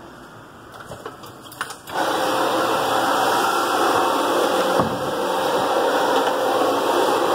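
A Brush Pro 10-inch carpet brush machine agitating carpet. It comes on suddenly about two seconds in, then runs with a loud, steady whirr.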